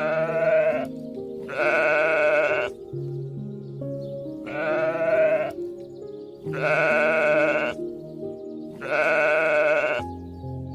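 Five loud, wavering farm-animal calls, each about a second long and about two seconds apart, over background music with held notes.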